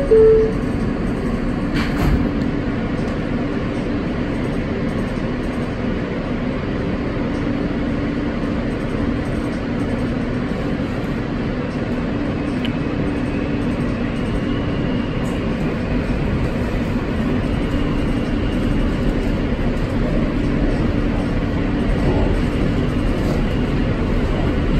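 New York City Subway R160 car pulling out of a station: a short two-note falling door chime right at the start, then the steady running noise of wheels and traction motors, growing slightly louder as the train picks up speed.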